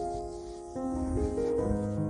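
Background music: slow, sustained piano-like notes changing every half second or so, with a lower note coming in about three-quarters of a second in.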